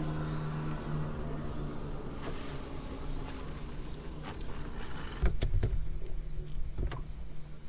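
Steady high-pitched drone of night insects over the marsh, under a low hum that fades after the first second or so. About five seconds in come a few sharp knocks and low thumps.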